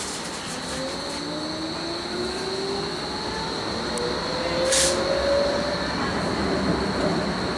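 Interior of a Bombardier Flexity Berlin tram underway: wheel and running noise, with the traction drive's whine rising steadily in pitch as the tram accelerates. A short hiss about five seconds in.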